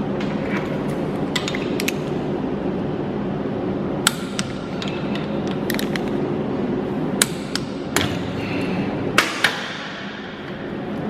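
Torque wrench tightening the bolts of a connecting rod cap held in a rod vise: a handful of sharp metallic clicks, two close together near the end, over a steady background hum.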